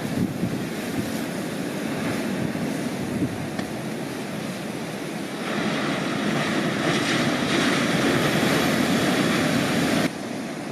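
Atlantic surf breaking, a continuous wash of waves. It swells louder and hissier from about halfway through as a wave crashes, then drops off suddenly near the end.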